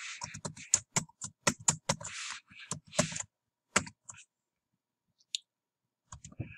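Computer keyboard keys clicking in a rapid run of keystrokes for about four seconds, then a pause and a few more key clicks near the end.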